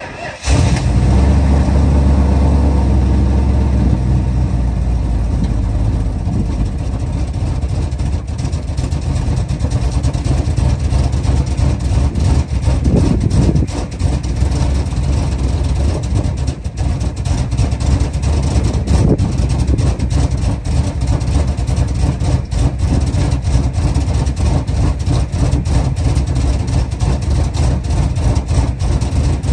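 The 1977 Chrysler Town & Country's 440 V8 running steadily near the rear of the wagon, fed from a gas can after a new fuel filter and a replaced pinholed fuel line.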